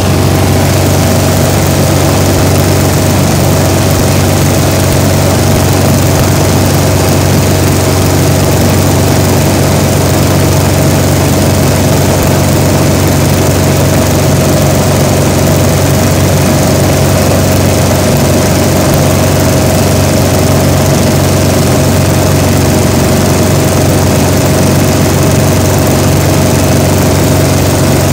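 Single-engine light airplane's piston engine and two-blade propeller running steadily at cruise power, heard from inside the cockpit, with an unchanging pitch.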